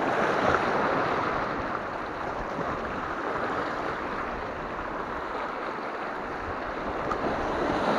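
Sea waves washing over and breaking against a rocky shore: a steady rush of surf that swells a little near the start and again near the end.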